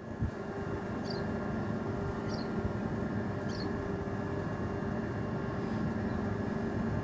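Steady mechanical hum holding several even tones, like a motor or engine running, with three faint short high chirps about a second and a quarter apart in the first half.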